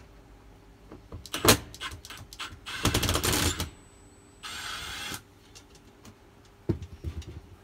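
Cordless drill backing out Phillips-head screws from the bed-end safety wall: a short loud rattling run about three seconds in, then a steadier whirring run about a second later, with knocks and clicks of the tool against the panel before and after.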